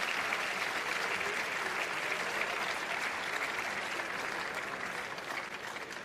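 Arena crowd applauding, dying down near the end, with a few sharp clicks as it fades.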